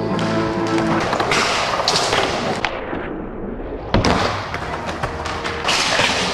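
Skateboard wheels rolling on wooden ramps, with repeated clacks and thuds of boards popping and landing, the sharpest impact about four seconds in. Music plays underneath.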